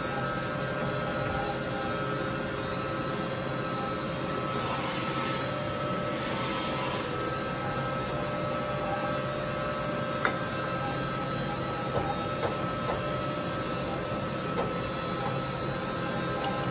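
Steady hum of machine-shop equipment with several steady tones. A few seconds of hiss come about five seconds in, and from about ten seconds on there are a few light metallic clicks as the clamp hardware on the mill fixture is worked with a hex key.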